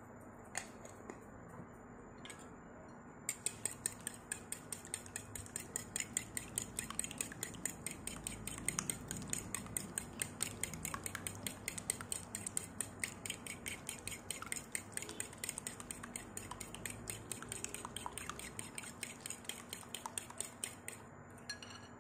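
Metal spoon stirring liquid batter in a ceramic bowl, clinking rapidly against the bowl. A couple of single taps come first, then steady fast stirring starts about three seconds in and stops just before the end.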